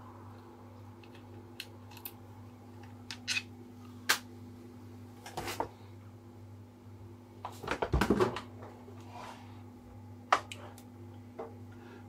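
Scattered clicks and clatter of hand tools working on bolts, with a denser cluster of knocks about eight seconds in, over a steady low hum.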